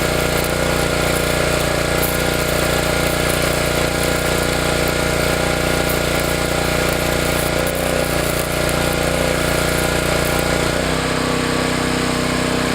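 Stick welding on a cast-iron vise body: a steady, loud buzzing crackle of the arc. The tone of the buzz shifts lower about eleven seconds in.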